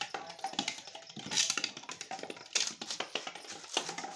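Quick, irregular clicks and scuffs of a small dog scrabbling about and playing with a ball on a hard floor.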